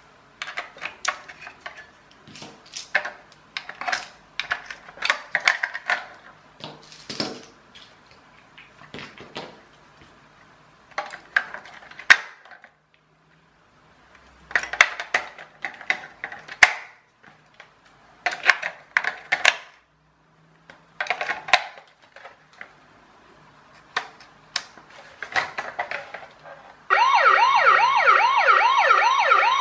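Clicks and rattles of AA batteries being pried out of and pressed into a plastic toy car's battery compartment. Near the end the Chad Valley light-and-sound toy police car's electronic police siren starts, a loud fast warble rising and falling about three times a second.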